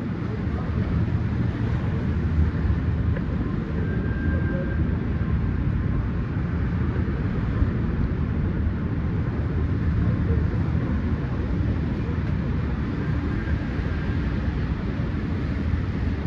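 Steady low rumble of city street ambience, traffic and general outdoor noise, with no distinct events standing out.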